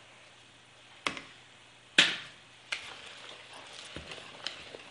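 Hand whisk stirring wet cake batter in a bowl. A few sharp knocks, the loudest about two seconds in, then steady wet whisking through the thick mixture.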